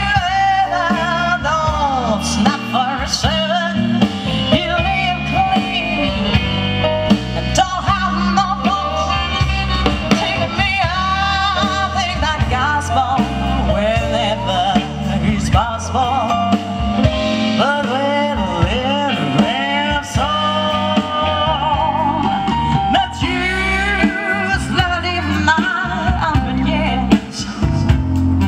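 A live soul band playing through a PA: a woman singing lead over electric guitar, bass and drum kit.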